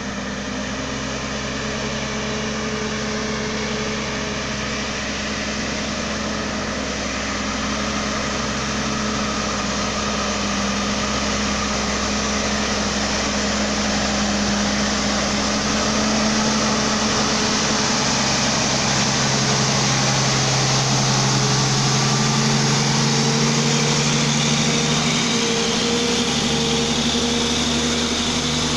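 Heavy diesel truck engines running steadily under load as a big-rig recovery truck hauls a loaded truck up a steep hill on a chain. The drone grows slightly louder as the trucks approach, and its pitch steps up a little late on.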